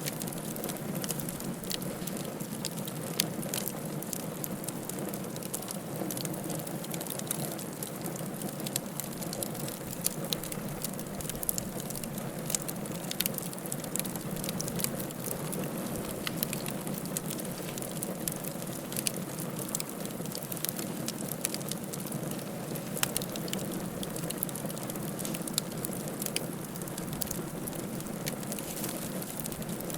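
Wood fire crackling: frequent irregular sharp pops and snaps over a steady low rushing sound.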